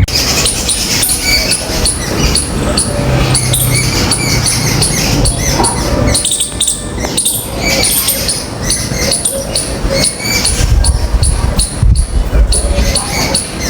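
Common mynas calling: a busy, continuous run of harsh clicks, chatters and short squawks with a few brief whistled notes.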